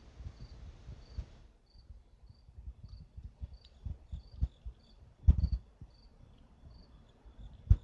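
A cricket chirping steadily, one short high chirp a little under twice a second, under close low thumps and crunches from a tabby kitten chewing a cockroach; the thumps are loudest about five seconds in and just before the end.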